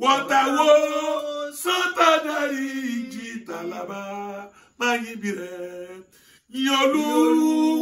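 A man singing a slow praise song alone and unaccompanied, in long held phrases with short breaths between them.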